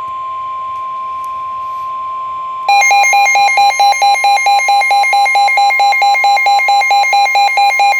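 Emergency Alert System warning tones: a steady high tone sounds alone for the first couple of seconds, then a louder, rapidly pulsing alarm tone joins it and carries on.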